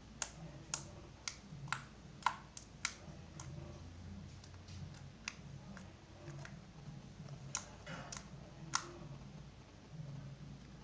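Slime being squeezed and worked by hand, giving sharp irregular clicks and pops. They come quickly in the first three seconds, then a few scattered ones, with the loudest about two seconds in and near the end.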